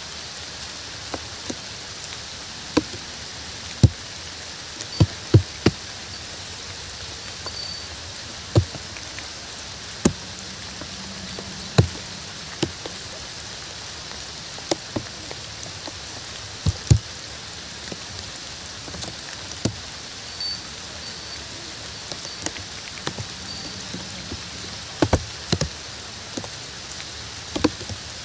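Steady rain falling, with large single drops landing close by at irregular moments, each a sharp tap above the even patter.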